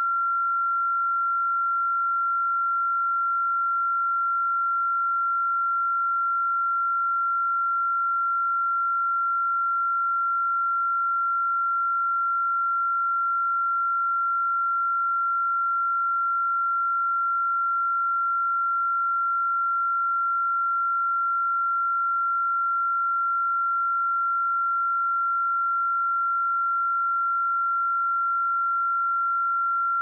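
A pure 1371 Hz sine-wave test tone, one steady high-pitched note held at an even level with no other sound.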